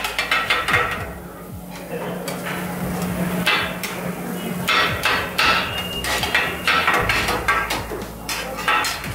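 Two flat steel chopping blades striking a hot iron griddle in rapid runs of metallic clangs, kottu-style chopping and mixing of a noodle stir-fry, with a short lull between runs.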